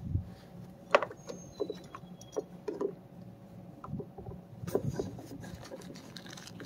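A hand rummaging in the pockets of a fabric Veto Pro Pac tool bag: scattered light clicks, taps and rustles at irregular intervals as small items are put away and handled.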